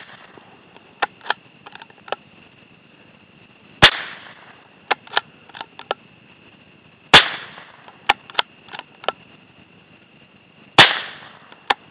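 Marlin 25N bolt-action .22 rifle fired three times, roughly three and a half seconds apart. After each shot come several small metallic clicks as the bolt is worked to chamber the next round.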